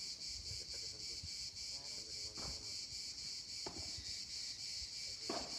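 A steady chorus of cicadas with an even, pulsing rhythm. Over it come three short knocks of a padel ball being struck, about two and a half, three and a half and five seconds in.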